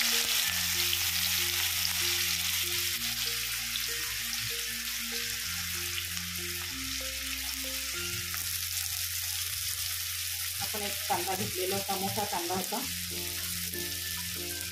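Chopped onion sizzling in hot oil in a steel wok, just added. The hiss sets in loud and eases a little as it goes.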